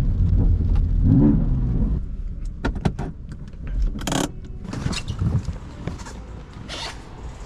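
BMW F80 M3's S55 twin-turbo inline-six on its stock exhaust, running loudly for about two seconds with a brief rise in pitch: the flat, farty note the owner dislikes. It then drops away to a few sharp clicks and short hissing bursts.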